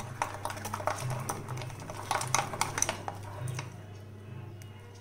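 A spoon stirring thick chocolate cake batter in a bowl: quick clicks and scrapes of the spoon against the bowl's sides, thinning out after about three and a half seconds. A steady low hum runs underneath.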